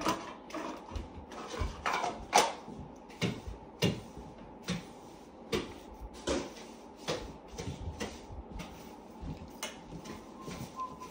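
A broom swept across a floor in short strokes, an irregular series of scrapes and light knocks about one every half second to second.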